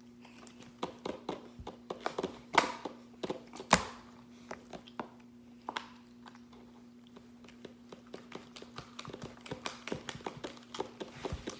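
Slime being squished and worked by hand, giving irregular clicks and pops, with a few louder snaps in the first few seconds and a denser patter near the end, over a faint steady hum.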